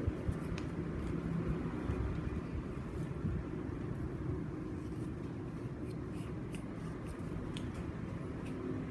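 Scissors cutting through paper, with scattered faint snips and paper rustling over a steady low background rumble.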